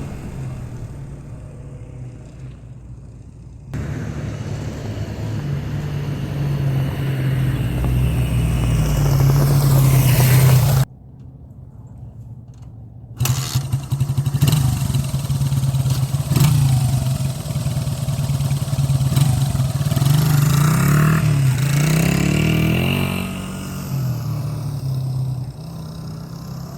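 1981 Honda XR100's small single-cylinder four-stroke engine under way on a ride, its note rising and falling with throttle and gear changes, freshly tuned with a cleaned carburettor and adjusted valves. The revs climb steadily to a high pitch about ten seconds in, then the sound drops off abruptly and returns a couple of seconds later.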